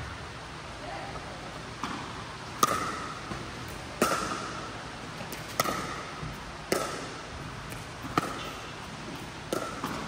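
Pickleball rally: paddles popping a hollow plastic ball back and forth, about seven or eight sharp hits spaced a second or so apart, each with a short ring and an echo off a large indoor hall.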